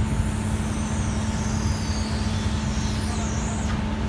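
A large 500 kVA diesel generator set running steadily: a loud, even engine rumble with a constant hum.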